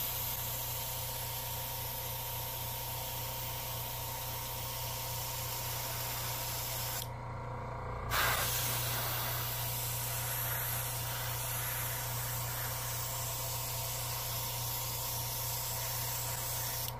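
Airbrush spraying paint: a steady hiss of air and atomised paint, opened up for a heavier flow. It stops for about a second near the middle, then resumes. A steady low hum runs underneath.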